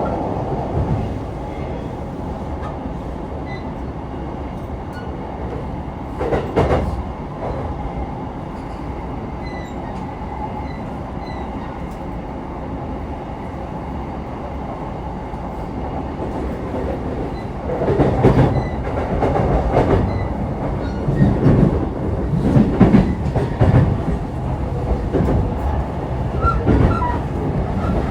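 Interior running noise of a JR East E233-3000 series electric multiple unit at speed: a steady low rolling rumble. A short clatter comes about six seconds in, and louder repeated clattering of wheels over the track sets in after about eighteen seconds.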